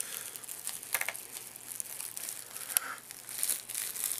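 Bubble wrap crinkling under the laptop, with scattered small clicks as a flat-head screwdriver pries at the plastic screw covers on the screen bezel.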